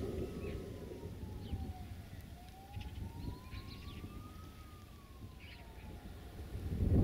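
A faint siren wailing, its single tone sliding slowly down, then up, then down again over a few seconds. A low wind rumble and a few bird chirps run underneath.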